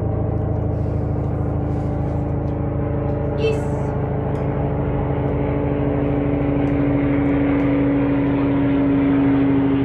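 A steady machine drone, a low hum with one held tone over it, swelling slightly near the end. One brief high squeak about three and a half seconds in.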